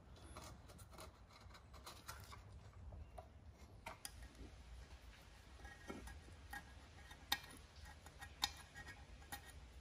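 Faint scratching and light ticking of a razor blade scraping old gasket material off the engine crankcase cover's sealing surface, with a couple of sharper clicks in the second half.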